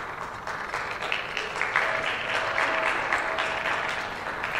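Audience applauding: many hands clapping, swelling to a peak in the middle and easing off toward the end.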